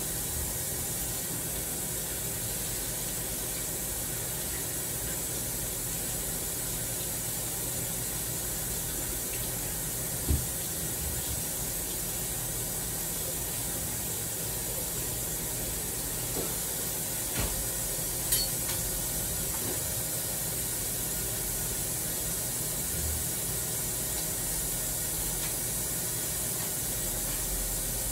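Kitchen tap left running into the sink, a steady rush of water, with a few faint knocks and clinks partway through.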